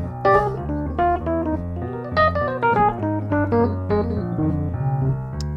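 Two jazz pianists playing a blues in F together on digital stage pianos, with chords and a low bass line moving under a melody line.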